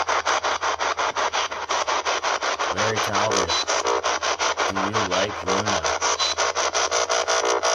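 Ghost-hunting spirit box sweeping through radio stations: rapid choppy static pulses, about seven a second, with two short voice-like fragments about three and five seconds in.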